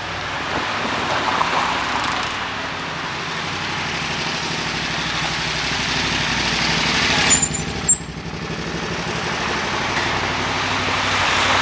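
Street traffic: a motor vehicle's engine running close by over steady road noise. About seven and a half seconds in there are two brief high squeaks, and then the noise drops suddenly.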